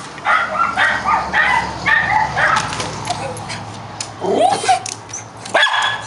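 Miniature schnauzers barking in rapid repeated bursts, alarm barking as watchdogs, with higher yipping, gliding notes about four seconds in.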